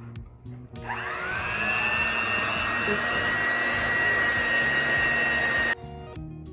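Electric hand mixer switched on about a second in, its whine rising quickly and then running steady as it beats flour and mashed banana into a dough, then cutting off suddenly near the end.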